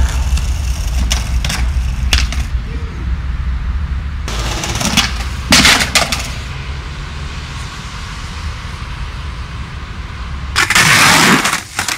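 Skateboard wheels rolling on concrete with a low rumble that stops about four seconds in, followed by several sharp clacks and clatters of the board hitting the ground as the skater bails. A loud burst of rough noise comes near the end.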